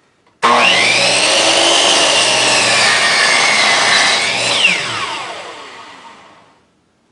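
10-inch chop (miter) saw motor starting suddenly and cutting through a board on a compound miter cut. Its whine sags in pitch under the load of the cut and then recovers. About four and a half seconds in the trigger is released and the blade winds down with a falling whine that fades over about two seconds.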